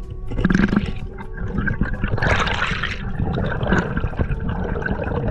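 Water rushing and bubbling around a camera held underwater while spearfishing, with a louder gush of water about two seconds in.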